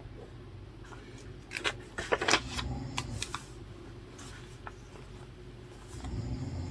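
A run of sharp clicks and rustles, like objects and paper handled at a desk, from about one second in to nearly five seconds, loudest around two seconds. Near the end a sleeping person's low snore swells up.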